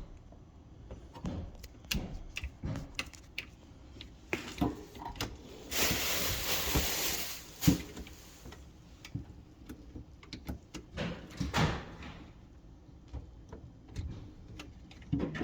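Scattered knocks, clunks and rattles of hands working on an under-counter appliance and its hoses, with a rushing hiss lasting a couple of seconds about six seconds in.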